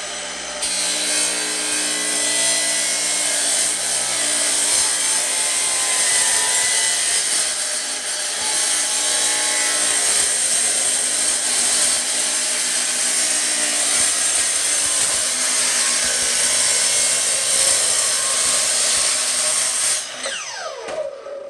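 A 10-inch sliding compound miter saw with a diamond tile blade cutting through a stack of four corrugated galvanized steel sheets: a loud, steady, high-pitched grinding over the saw motor. Near the end the cut finishes and the motor spins down, its pitch falling.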